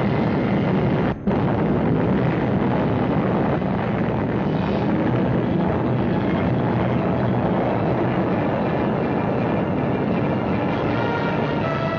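Atomic bomb blast and its shock wave tearing through trees, heard on an old newsreel soundtrack as a steady, loud rushing noise with a brief dropout about a second in.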